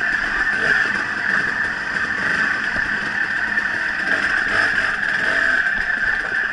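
Steady riding noise from a bike moving along a dirt singletrack trail, an even, unchanging sound with no rise or fall in pitch.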